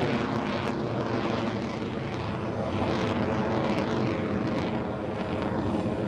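F-22 Raptor fighter jet flying overhead: steady, dense jet engine noise from its twin turbofans.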